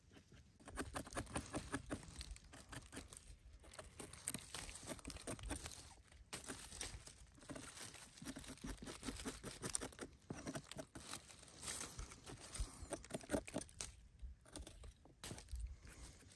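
A small knife scraping soil off the stem base of a porcini (Boletus edulis) in quick, scratchy strokes, with dry fallen leaves crinkling under the hands. The scraping comes in runs broken by a few short pauses.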